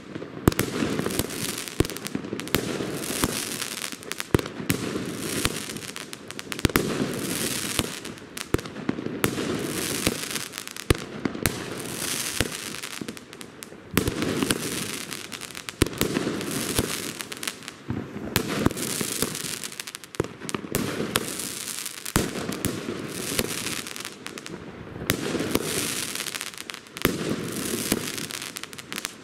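Vuurwerkmania Double Demolition firework battery firing shot after shot: sharp bangs and crackling aerial bursts, a new swell about every one to two seconds.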